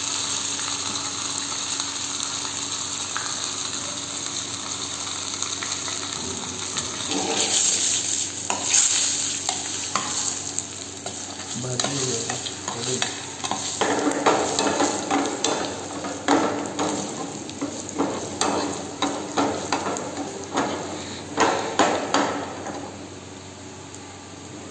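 Sliced onions sizzling in oil in a small nonstick frying pan, then a steel ladle stirring and scraping against the pan in quick, irregular strokes from several seconds in.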